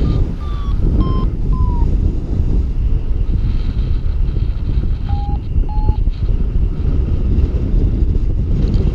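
Wind rushing over the microphone in flight under a paraglider, with a variometer's short beeps about three a second, falling in pitch over the first two seconds, and two more beeps about five seconds in, signalling rising air.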